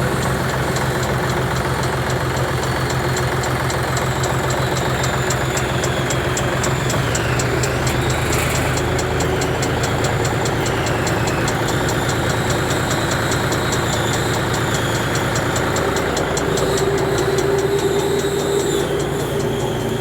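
Tractor engine running steadily, driving a tractor-mounted atta chakki (flour mill) with a constant low engine beat and mechanical hum.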